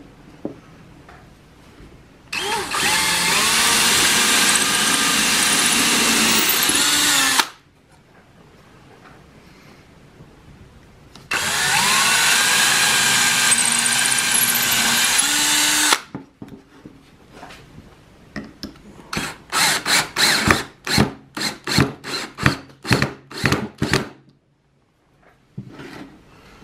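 A hand-held power drill boring and countersinking holes in plywood, in two steady runs of about five seconds each. Near the end come about a dozen quick stop-start bursts of the drill.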